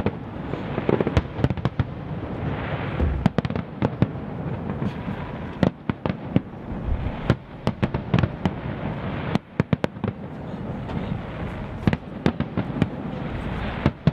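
Aerial fireworks display: a dense run of sharp bangs from bursting shells over a continuous crackle, with a brief lull about nine seconds in.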